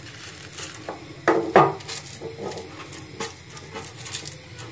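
Butter paper rustling and crinkling as it is pressed into a metal loaf tin, with a series of light knocks of fingers and paper against the tin; the loudest two knocks come about a second and a half in.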